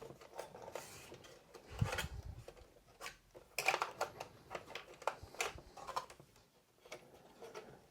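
Hands fitting small plastic parts and cable connectors into an AMS filament unit: scattered light clicks and short scrapes, with a dull knock about two seconds in.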